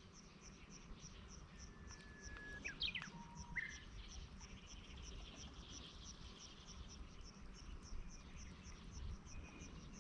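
Faint, steady insect chirping, a high pulse repeating about four times a second, with a few short bird whistles about two to four seconds in.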